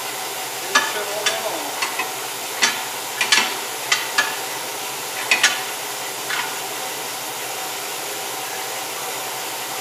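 Sharp metal clicks and clanks from a tire being worked off its rim on a tire-changing machine: about a dozen knocks in the first six seconds or so, then only a steady hiss.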